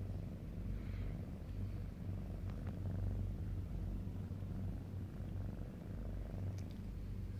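Domestic cat purring steadily, right up against the microphone, a low even hum with a regular pulse.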